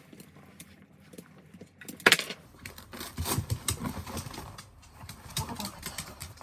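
Handling noises as a dog's raincoat is pulled off: one loud sharp click about two seconds in, then a run of irregular clicks, rustles and low thumps.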